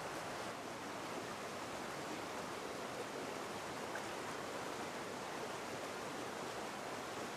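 Shallow, fast-flowing stream rushing steadily.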